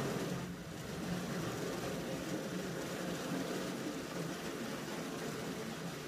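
A steady mechanical drone with a hiss, unchanging throughout.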